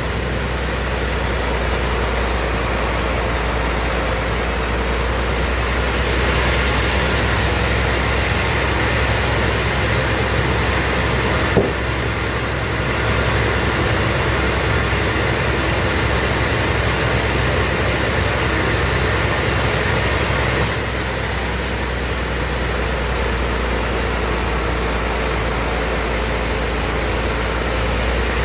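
Sawmill bandsaw machinery running steadily with a low hum, with a high hiss that comes in for a few seconds at the start and again near the end. A single sharp click about halfway through.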